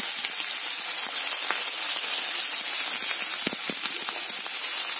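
Chopped raw-banana peel, onion and garlic frying in hot coconut oil in an aluminium wok: a steady sizzle with a few faint ticks a little past the middle.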